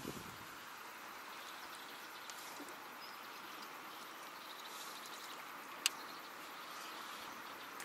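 Faint, steady outdoor background noise, with a single sharp click about six seconds in.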